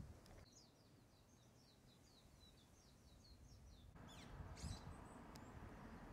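Faint outdoor ambience with a small songbird giving a rapid series of short, high, down-slurred chirps. About four seconds in the background noise rises and a few sharper sweeping bird calls follow.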